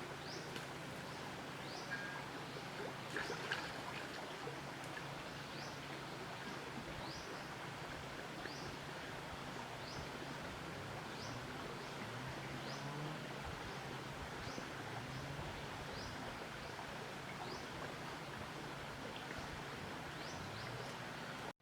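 Steady rush of a flowing river or stream, with a short high chirp repeating about once a second.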